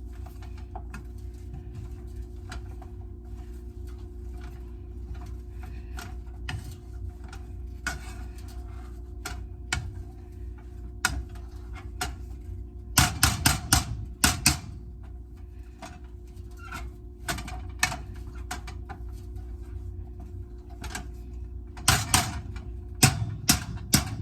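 Potato masher knocking and clattering against a pot while mashing boiled potatoes, in scattered clicks with two runs of loud, rapid knocks about halfway through and near the end.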